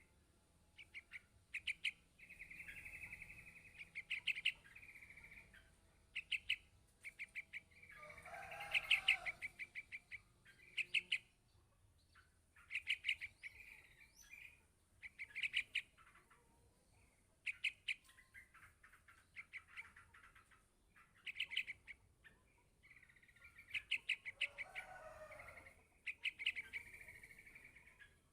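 Young yellow-vented bulbul calling for its parent: bursts of rapid, high chattering call notes, repeated every couple of seconds, with a lower wavering call twice among them.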